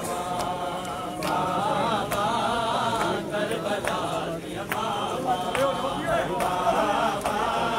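A group of men's voices chanting a Punjabi nauha (mourning lament), crossed by regular sharp slaps of matam chest-beating.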